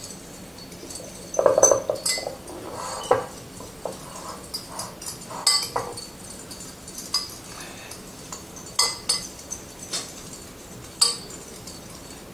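A whisk clinking against a bowl while salad dressing is whisked: irregular light clinks with a ringing edge. The loudest, duller knock comes about one and a half seconds in.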